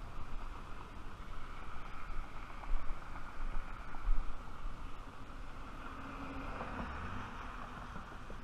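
Wind buffeting the microphone in low thumps over a steady hum of road traffic.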